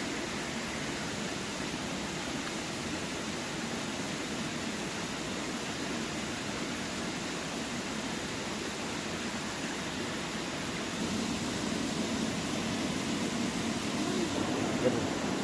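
A steady rushing noise that grows a little louder about two-thirds of the way through, with a single short click near the end.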